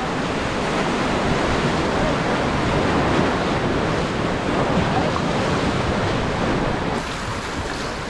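Steady rush of white-water river rapids around an inflatable raft, with wind on the microphone. The sound drops a little in level about seven seconds in.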